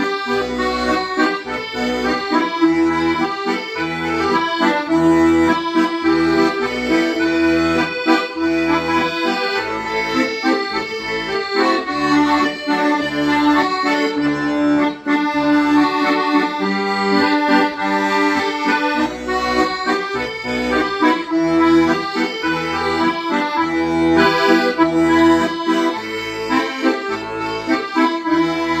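Accordion playing a melody of held notes over a steady, regularly pulsing bass accompaniment.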